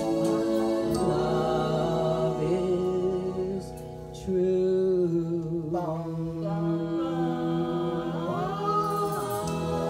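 A small group of voices singing a slow song together in harmony, holding long notes, with a short pause between phrases about four seconds in.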